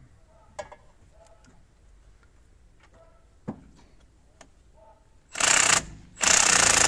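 A cordless power driver with a 17 socket runs in two loud bursts near the end, the second longer, turning a caliper wind-back tool to push the rear brake caliper piston back. Before that come a few light metal clicks and a small knock as the tool is fitted.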